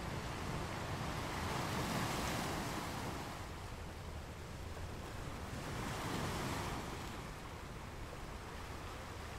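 A steady rushing noise that swells twice, about four seconds apart, each swell rising and fading over roughly two seconds.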